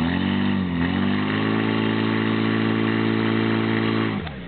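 Portable fire pump's engine pumping water to the hose lines: its pitch rises and falls unevenly for the first second or so as the revs are adjusted, then it holds a steady high run until it drops away near the end.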